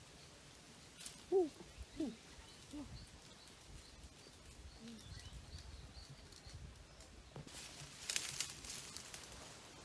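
A few short, low, arching calls from an animal in the first half, the first the loudest. Near the end, leaves and branches rustle as someone pushes through dry undergrowth.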